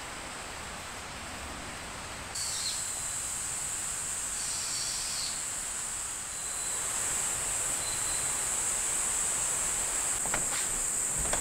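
Forest ambience with a steady, high-pitched drone of insects that starts abruptly about two seconds in and carries on; a couple of light knocks come near the end.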